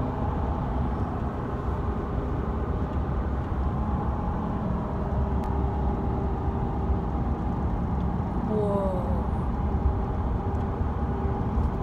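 Steady low rumble of engine and road noise inside a car's cabin, with a few steady droning tones in it.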